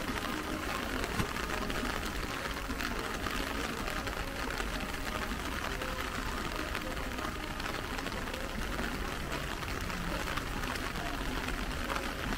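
Rain falling steadily: an even hiss dotted with many small drop ticks.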